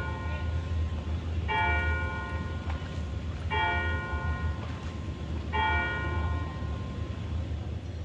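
Church bell tolling slowly: three strokes about two seconds apart, each ringing out for about a second, over a steady low rumble.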